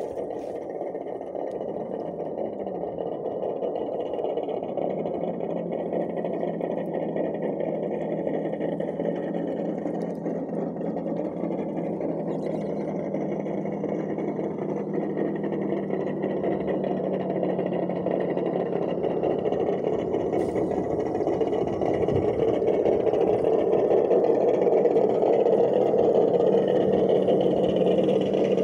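Electric motor and gearbox of a scale RC crawler whirring steadily, growing louder as the model drives through the puddle toward the camera.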